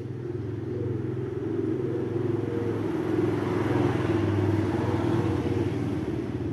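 A motor vehicle engine running at a steady pitch, growing louder to a peak about four seconds in and then easing off, as a vehicle passes close by.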